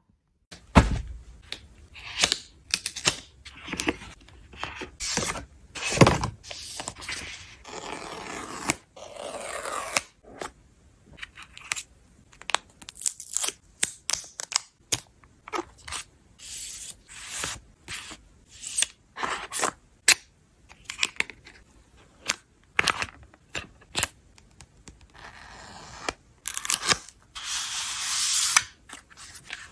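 Packaging being unboxed by hand: plastic protective film peeled and torn, cardboard and paper handled, making many short clicks and scrapes. There is a longer stretch of tearing and rustling about eight seconds in and another near the end.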